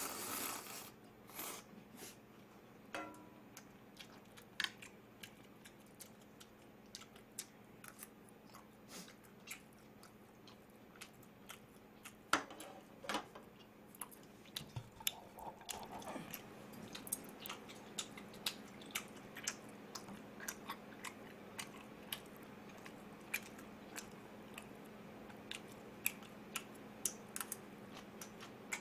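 A person eating ramyun noodles close to the microphone: a noisy slurp of noodles right at the start, then steady chewing with many small wet smacks and clicks of the mouth.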